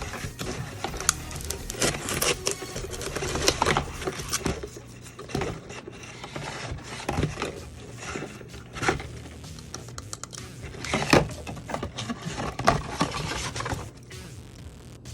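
Irregular clicks, taps and scrapes of hands dismantling a cardboard-and-plastic toy display box, sharp knocks standing out a few times, over a low steady hum.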